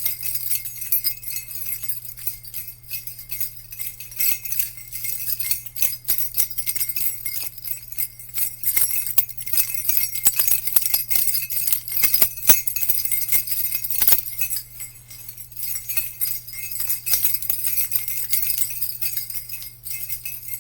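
Jingle bells jingling continuously with an uneven, shaken rhythm of many small bright strikes, over a faint low steady hum.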